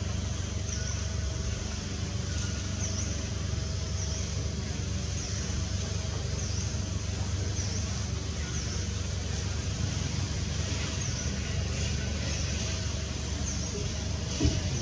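Outdoor ambience: a steady low rumble, with a high-pitched chirp repeating about once a second. A short, louder sound comes near the end.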